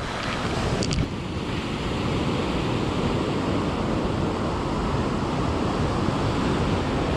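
Ocean surf breaking and washing up the beach, with wind buffeting the microphone and a brief click about a second in.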